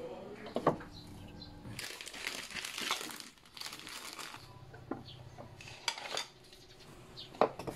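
Kitchen items being handled and put away: a sharp glass clink under a second in, plastic snack wrappers crinkling for about a second and a half, then a few sharp knocks and clacks near the end as wooden spoons are handled in a ceramic utensil holder.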